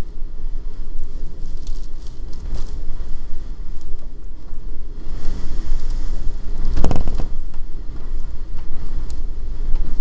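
Blizzard wind at around 120 km/h buffeting the microphone with a heavy, steady rumble. A stronger gust swells about five seconds in and peaks near seven, with the hiss of wind-driven snow and scattered crackles.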